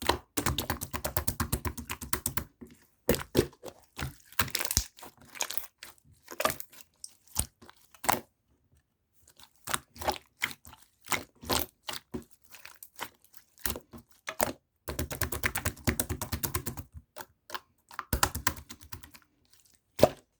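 Rapid runs of small, sharp clicks and crackles close to the microphone, coming in bursts a few seconds long with a short pause near the middle.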